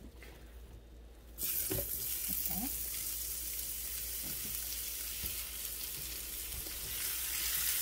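Maitake (hen-of-the-woods) mushrooms dropped into a pan of hot melted butter, starting to sizzle suddenly about a second and a half in and then frying with a steady hiss.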